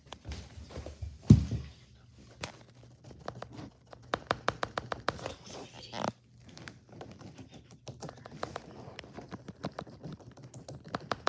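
A paintbrush tapped and scrubbed against a small canvas: a run of quick, light taps, densest around the middle, after a single thump about a second in.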